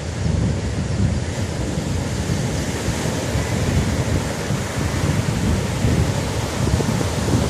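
Sea surf washing steadily onto the beach, with wind buffeting the microphone as a low rumble.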